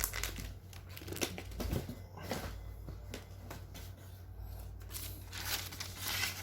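Plastic packaging crinkling and rustling as it is handled, in a run of irregular short crackles.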